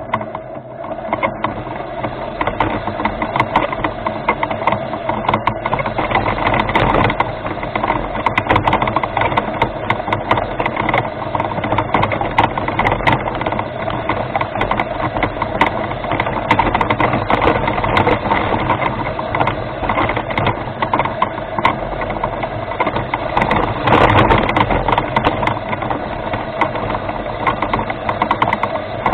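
Remote-controlled rover's drive motors and gearbox running with a steady drone, with frequent clicks and rattles on top; it gets briefly louder about 24 seconds in.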